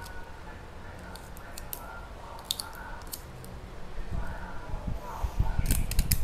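Hands working orchid stems fixed with bent wire and tape: scattered small sharp clicks, then louder clicks and low bumps near the end.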